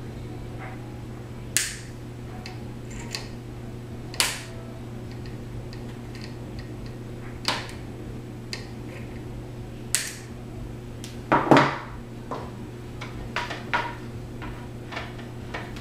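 Diagonal cutters snipping the excess wire leads of a replacement electrolytic capacitor on the underside of a circuit board. There are sharp snips every two to three seconds with lighter clicks between, and a louder knock about eleven and a half seconds in.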